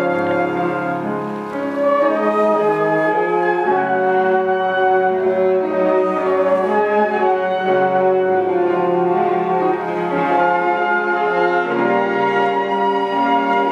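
Flute ensemble playing held notes in several parts at once, the harmony shifting every second or so.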